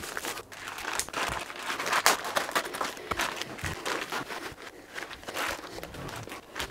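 Clear plastic vacuum-pack bag crinkling and rustling as it is peeled and pulled off a whole raw beef brisket, with irregular crackles throughout.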